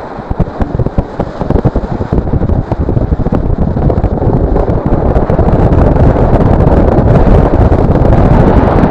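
Airflow buffeting the camera microphone in flight under a paraglider: a loud wind rumble, gusty at first and then steadier and louder from about halfway.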